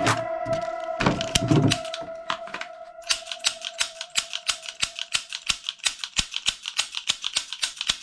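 Toy gun clicking in a rapid, even run of sharp clicks, about seven a second, after a few separate louder clicks. A steady electronic tone plays under it and fades out midway.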